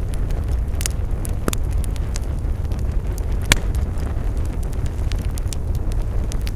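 Campfire burning with a steady low rumble of flames and scattered sharp crackles and pops of burning wood, the loudest pop about three and a half seconds in.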